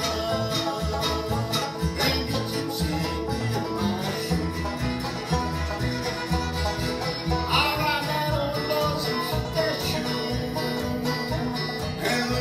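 Live bluegrass band playing: banjo picking, acoustic guitar strumming, fiddle and upright bass, with the bass keeping a steady beat.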